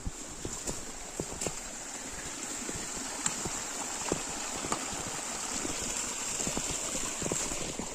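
Shallow mountain stream running and gurgling, with many small irregular splashes and a steady high-pitched hiss over it.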